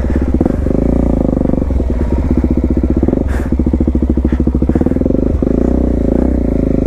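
Suzuki DR-Z400S's single-cylinder four-stroke engine running steadily through an aftermarket slip-on exhaust, with a few brief clicks and knocks partway through.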